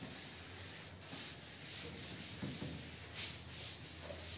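Chalkboard duster wiping chalk off a chalkboard, a dry rubbing swish in repeated strokes.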